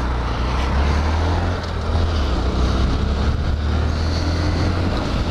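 Honda Grom's stock 125cc single-cylinder four-stroke engine running steadily at road speed, with a heavy low rumble of wind on the helmet microphone.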